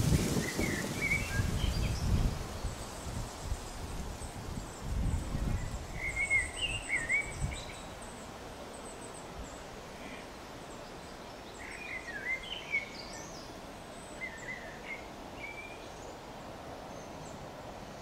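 Wild birds singing and calling outdoors in short chirping phrases, with a thin high trill running alongside. A low irregular rumble, like wind on the microphone, sits underneath and dies away about eight seconds in.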